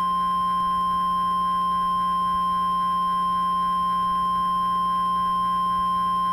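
Emergency-alert warning tone: a single steady, loud pure tone just above 1 kHz, the 1050 Hz NWS weather-radio alarm tone that comes before a warning message. A steady low hum sits underneath.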